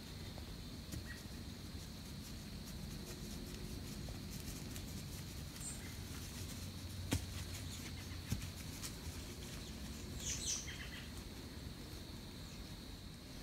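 Quiet outdoor field ambience with a steady low rumble and a faint steady high tone, two sharp clicks about seven and eight seconds in, and a short chirping bird call about ten seconds in.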